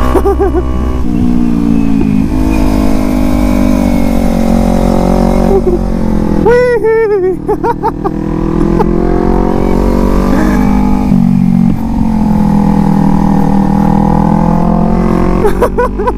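Kawasaki Z250 parallel-twin engine running under way, its pitch rising and falling with the throttle, over a steady wind rumble on the helmet microphone. The engine note shifts suddenly about a second in and again near eleven seconds.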